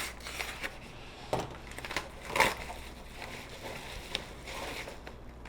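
A mailed CD package being opened by hand: packaging rustling and crackling, with a few sharper snaps, the loudest about two and a half seconds in.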